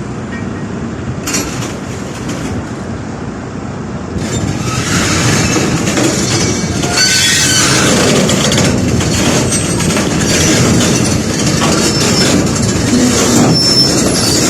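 Excavator engine running as the machine moves on its steel tracks to be loaded for transport, the tracks clanking and squealing. It gets louder about four seconds in.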